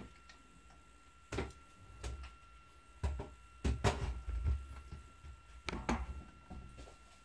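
Irregular clicks and dull knocks, several in a row from about a second in and thickest around the middle, over a faint steady high whine.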